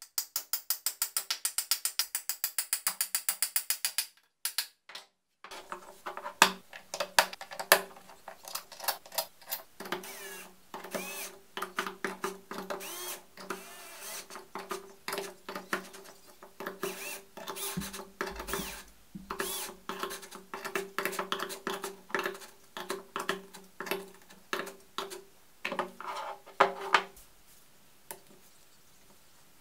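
A hammer tapping a metal insert into a 3D-printed plastic part in a rapid, even run of taps for about four seconds. Then irregular clicks and knocks of screws being driven into the printed part with a screwdriver, over a faint steady hum, stopping near the end.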